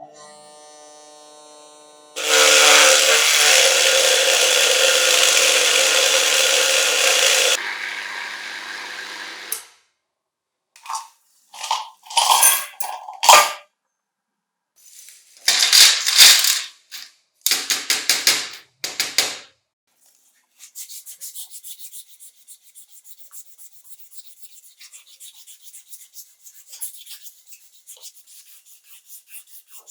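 Hand-work sounds on metal or plastic parts. First a loud, steady rushing noise for about five seconds. Then a series of short scraping strokes with pauses between them, and in the last third fast, light, repeated rubbing or scrubbing strokes.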